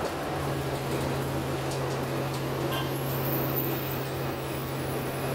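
Inside a city transit bus under way: a steady low hum from the engine and ventilation with an even wash of road noise.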